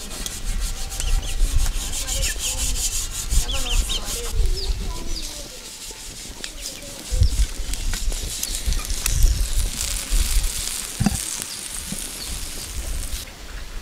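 Chicken sizzling and crackling in a wire grill basket over an open fire, a fine hiss with many small pops, over gusts of wind rumbling on the microphone.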